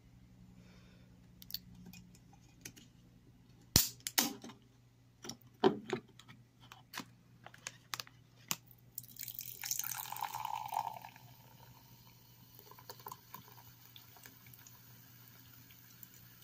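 Sharp clicks and knocks of a drink container being handled, then a dark drink poured from a red container into a glass. The pour rushes loudest for about two seconds, a little past the middle, and then trails off into a faint fizz.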